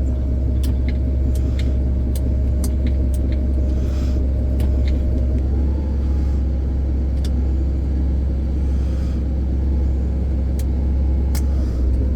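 Chevrolet tire truck's engine idling with its PTO-driven air compressor engaged and running, a steady low rumble. The compressor is building air pressure. Occasional light clicks sound over it.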